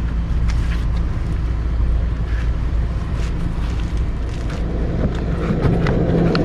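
Wind rumbling on the microphone over a steady low hum, with scattered light clicks and taps.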